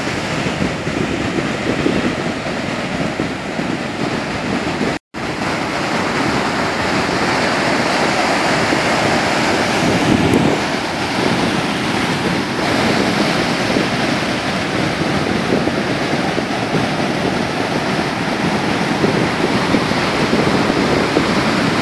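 Ocean surf: waves breaking and washing up the beach in a steady rush of noise. The sound cuts out for an instant about five seconds in.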